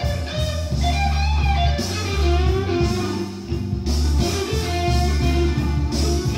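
Electric blues recording, an electric guitar lead over a heavy bass line, played back through a Yamaha M-80 stereo power amplifier.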